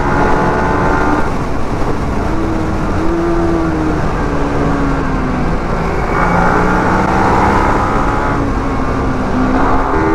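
Sport motorcycle engine running at speed with wind rush, its revs rising and falling through the bends. A second motorcycle's engine joins in about six seconds in, alongside the first.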